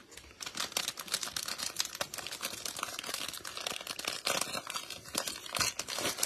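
Plastic wrapper of a trading-card multi-pack being torn open and crumpled by gloved hands: a dense, continuous crackling.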